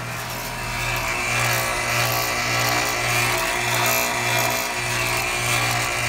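Outdoor heat pump unit running: the rush of air from its condenser fan over a low hum that pulses about twice a second.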